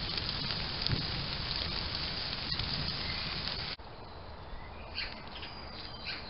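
Trail camera audio: a dense steady hiss with faint scattered clicks, which cuts off suddenly about four seconds in. What follows is a quieter woodland background with birds chirping and a few rustles in the leaf litter.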